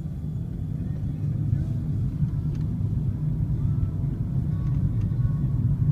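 Car running heard from inside the cabin: a low engine and road rumble that grows steadily louder as the taxi pulls away from a stop and picks up speed.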